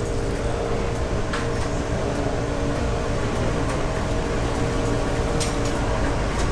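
Steady machine hum, with a few faint clicks.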